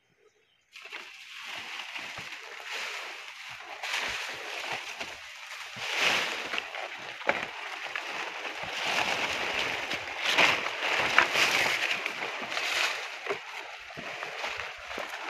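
Rustling and swishing of a large bundle of banana leaves carried on the shoulder through dense undergrowth, with footsteps on the path and a few sharp snaps. It begins suddenly about a second in and swells and fades unevenly.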